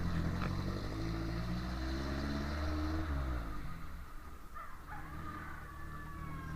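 Vehicle engine running, its pitch climbing a little and then dropping away about three seconds in, after which it runs quieter.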